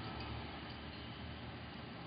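Faint steady background hiss with a low hum: room tone, with a few very faint ticks.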